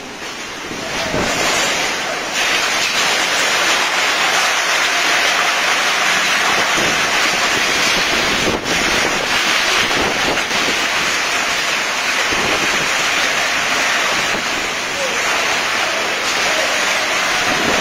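Violent storm of heavy rain driven by strong wind: a loud, dense rushing noise that swells over the first two seconds and then holds, with wind buffeting the microphone.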